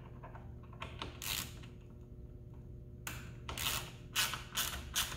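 A small hand wrench tightening a bolt on a roll-bar mounting bracket: a short rasping stroke about a second in, then a run of short rasping strokes, about three a second, in the second half.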